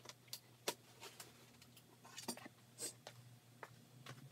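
Faint, scattered clicks and light knocks of hand work on a milling machine's stand: gloved hands and tools on metal and OSB board. A low steady hum runs underneath.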